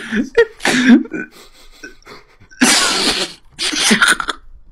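A man's exaggerated voice drawing out 'I smell... cheese', with a loud, rough burst of breath about two and a half seconds in, just before 'cheese'.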